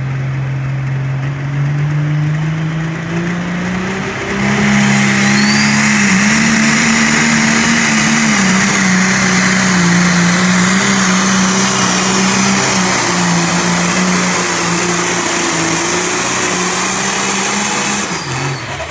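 Diesel pulling tractor under full load, pulling a weight-transfer sled down the track. The engine revs up, then from about four seconds in runs loud and steady with a high hiss and a rising whistle, until the sound cuts off near the end.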